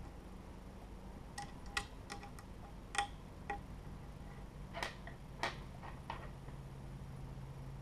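Small metal parts clinking and tapping as they are handled, several clicks with a short metallic ring, followed by a few brief scrapes in the second half.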